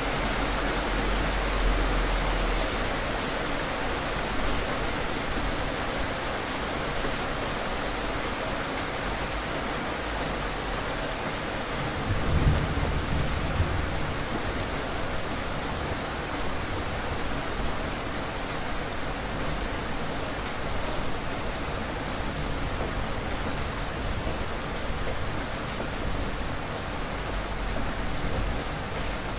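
Heavy rain falling steadily in a storm. A low rumble of thunder swells about twelve seconds in.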